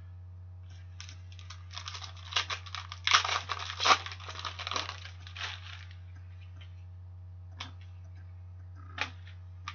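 A foil trading-card pack being torn open and its wrapper crinkled: a dense crackling for about five seconds, then a few light clicks as cards are handled. A steady low electrical hum runs underneath.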